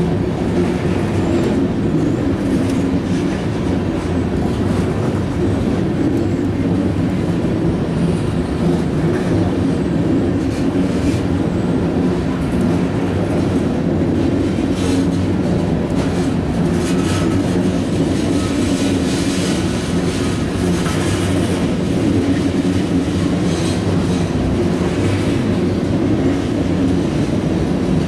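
Freight train tank cars rolling past, a steady loud rumble of wheels on the rails with repeated clicking of wheels over the rail joints.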